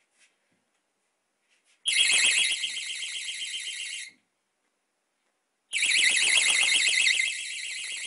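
A small battery-powered wireless door-entry alarm sounding its shrill, rapidly warbling electronic siren: on for about two seconds, cut off suddenly, then sounding again about a second and a half later and continuing, a little quieter near the end. It goes off when its magnetic door contact is parted.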